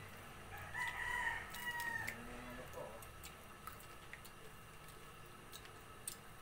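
A rooster crowing once, about a second in: a single held call lasting just over a second that drops at the end.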